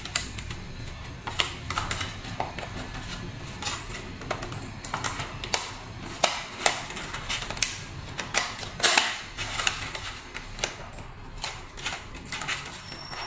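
Thin iridescent plastic-film puzzle-lamp panels bent and slotted together by hand: irregular crackling and clicking as the sheets flex and catch, loudest about nine seconds in.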